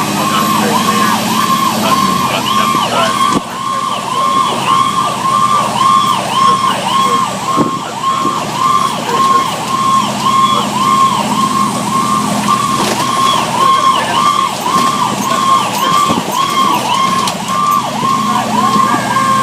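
Fire engine's electronic siren in a fast yelp, rising and falling about twice a second, with the truck's engine running underneath.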